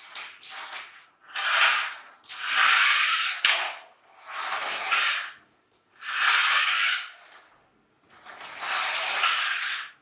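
Battery-powered remote-control toy car's small electric motor and gears whirring in short runs of about a second each, six times, as it is driven back and forth, with a sharp click about three and a half seconds in.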